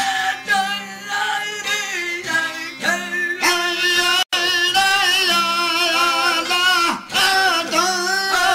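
Two men singing a Sindhi folk song in long, wavering held notes, over strummed long-necked drone lutes. The sound drops out for an instant a little past four seconds in.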